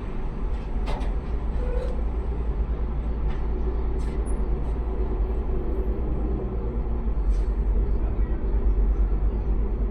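Steady low vehicle rumble, with a few light clicks about a second, four seconds and seven seconds in.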